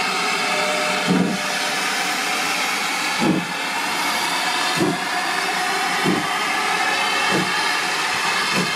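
Great Western steam locomotive pulling away from a standstill, with a steady hiss of steam from its cylinders. Six heavy exhaust chuffs come closer and closer together as it gathers speed.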